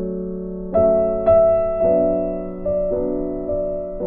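Background piano music: gentle notes and chords struck about every half second, each ringing and fading away.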